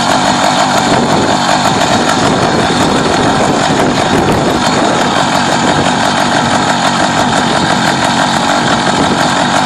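Small engine of a motorized bicycle running steadily, a fast, even buzz.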